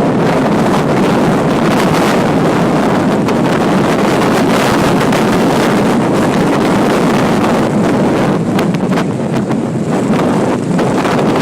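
Strong wind blowing hard across the microphone: a loud, steady rushing noise that turns patchier and gusty near the end.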